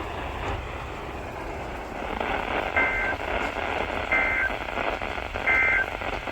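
Emergency Alert System SAME end-of-message data bursts: three short, shrill two-tone digital bursts about a second and a half apart, marking the end of the warning. Steady radio hiss runs underneath.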